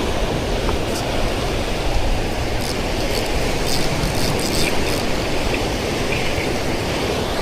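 Steady wash of ocean surf, with wind buffeting the microphone in a low rumble.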